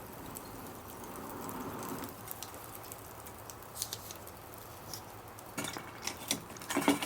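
Wood bonfire crackling with scattered sharp pops over a low steady hiss, and a few louder clinks and knocks near the end.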